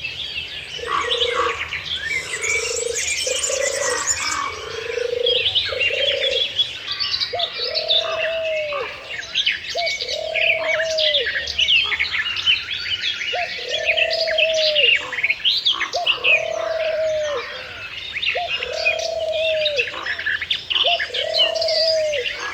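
A chorus of small birds chirping and trilling, with a lower call repeated: short notes in the first few seconds, then from about seven seconds in a longer note roughly every two seconds that rises slightly and drops off at its end.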